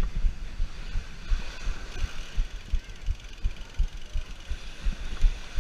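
Mountain bike being ridden over wet beach sand, heard from a camera on the rider: a steady tyre hiss with irregular low thumps from wind buffeting and jolts on the microphone.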